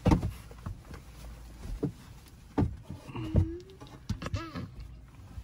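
Close-up handling noise as a labradoodle puppy licks and nuzzles a person's face. There is a sharp bump at the start, then scattered wet smacks and rustles, with a couple of brief murmured vocal sounds near the middle and later.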